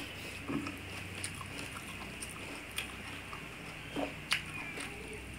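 Quiet eating sounds: chewing, with small scattered clicks and smacks as rice is mixed and eaten by hand from steel plates, the sharpest click a little after four seconds in, over a faint steady hiss.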